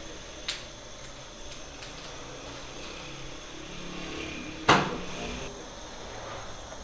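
Steady room hum with a few light clicks early on and one sharp, loud knock with a brief ring about two-thirds of the way through, like something hard struck or set down.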